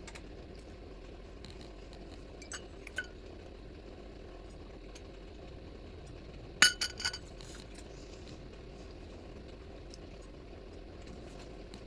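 Hard objects clinking against each other: two light clinks, then a quick cluster of sharper ringing clinks about halfway through, over a steady low background hum.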